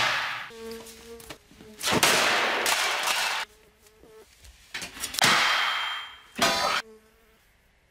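A housefly buzzing in short spells between four loud metallic clangs and clattering crashes, each ringing out for up to a second or so.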